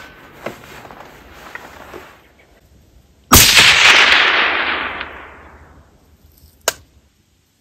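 A single rifle shot about three seconds in, its report rolling away and fading over about two seconds. A sharp click follows near the end.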